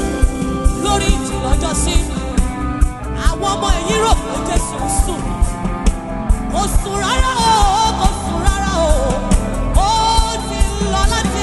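Gospel praise song playing: a band with a steady beat and held chords, and a lead melody that glides and bends in pitch over it.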